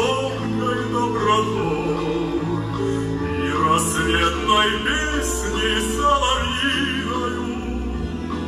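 Music accompanying a stage dance number: a singing voice with a wide vibrato over an accompaniment of long held bass notes that change every second or two.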